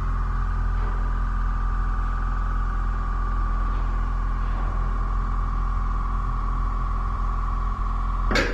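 A steady high ringing tone held over a low hum, ended by one sharp hit near the end.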